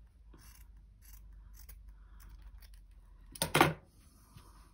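Scissors snipping through fabric in short, faint cuts, with a louder, sharp double click about three and a half seconds in.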